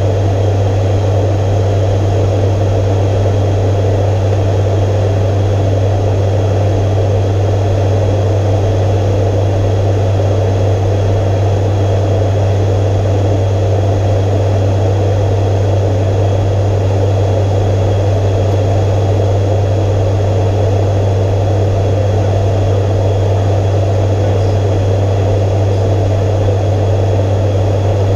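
ATR 72-500 turboprop's propellers and engines running steadily in flight, heard from inside the cockpit: a strong, even low propeller hum under a constant rushing drone.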